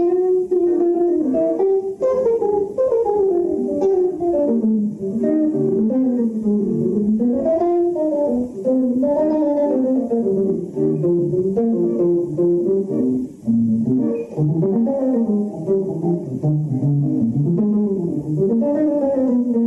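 Jazz guitar improvising flowing single-note melodic lines that wind up and down, mostly in the middle register.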